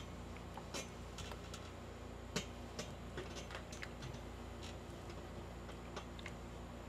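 Light, irregular clicks and taps from clothes being ironed, about two a second, with one sharper tap about two and a half seconds in, over a faint steady hum.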